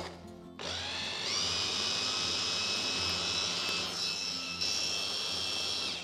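Electric mini food chopper running, its motor and blade whining as they purée a thick broccoli and cream sauce. It starts about half a second in, rises in pitch as it comes up to speed, runs steadily, and stops near the end.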